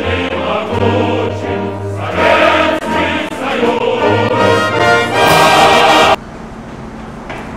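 Choral music, a choir singing with accompaniment, which cuts off abruptly about six seconds in, leaving only a faint steady background.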